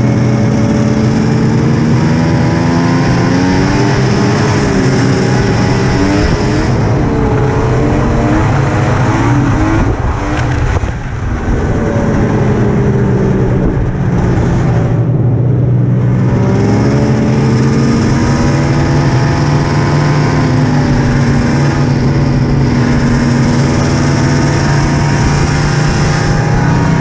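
Polaris RMK Ultra two-stroke snowmobile engine running under way, its pitch rising and falling with the throttle. About ten seconds in the throttle eases off briefly, and it dips and climbs again a few seconds later.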